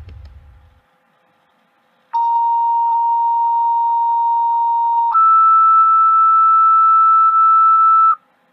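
Two-tone sequential fire dispatch paging tones, the alert that precedes a dispatch to the fire company: a steady tone held about three seconds, then a higher steady tone held another three seconds, cutting off sharply. Before them a vehicle's low rumble fades out in the first second.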